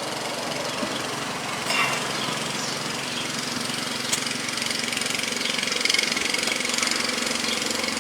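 Steady mechanical hum of a running machine, with a few short clicks and taps.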